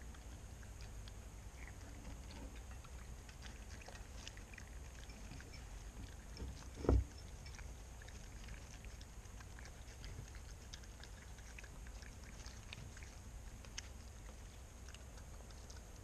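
Raccoon foraging in birdseed on a wooden feeding table: scattered faint clicks of seed being handled, and one dull thump about seven seconds in, over a steady low rumble.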